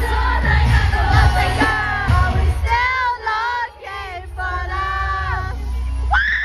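Live pop concert heard from within the crowd: loud amplified music with heavy bass. About two and a half seconds in, the bass drops out and sliding, high-pitched singing and yells take over until the full mix comes back near the end.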